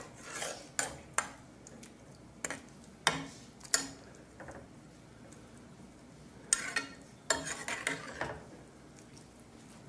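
Metal spoon stirring hominy and greens in liquid in a metal pot, with irregular clinks and scrapes against the pot, busiest in the first four seconds and again about seven to eight seconds in.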